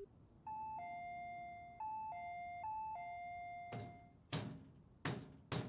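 Apartment door chime rung three times in quick succession, each a two-note ding-dong falling from a higher to a lower tone, the last one left to ring out. Then four sharp knocks on the door.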